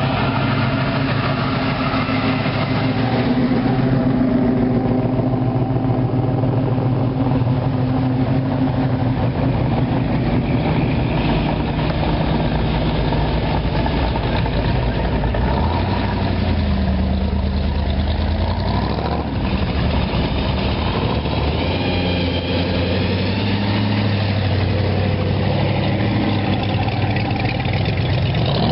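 Hot rod and classic car engines running at low speed as the cars drive slowly past one after another. The pitch of the engine note shifts about halfway through as a different car comes by.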